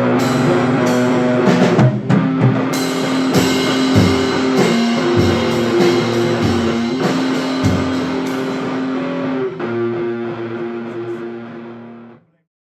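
Beginner rock/metal band playing: electric guitar and bass chords over a drum kit with cymbal hits. The music thins out over the last few seconds and stops about twelve seconds in.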